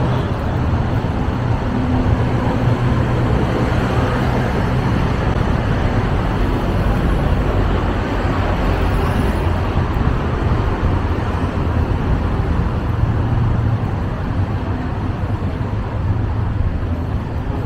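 Steady city street traffic: the rumble of engines and tyre noise from cars passing continuously.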